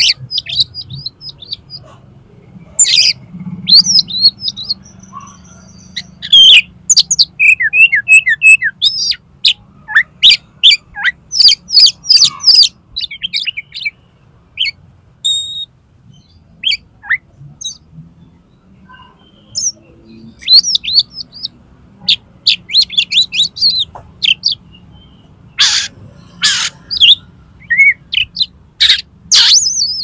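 Oriental magpie-robin singing loudly, pouring out a varied string of short, sharp whistled and chattering phrases in bursts, with a couple of brief pauses in the middle. It is a full-repertoire song of learned fill-in phrases, the aggressive singing used to provoke other magpie-robins.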